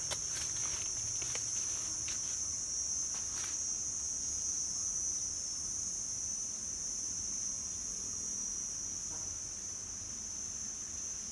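Insects calling in one steady, high-pitched drone, with a few light clicks in the first three seconds or so.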